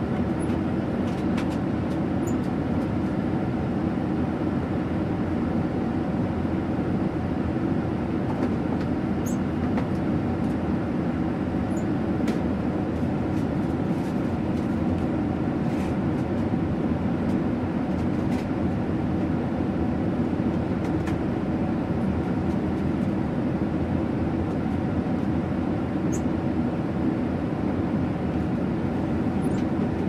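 Steady drone of an airliner cabin in flight: engine and airflow noise, deepest and strongest low down, with a few faint ticks now and then.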